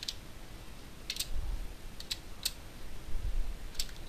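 Computer keyboard being typed on sparsely: a handful of separate key clicks with pauses between, a pair about a second in, two single ones, and another pair near the end.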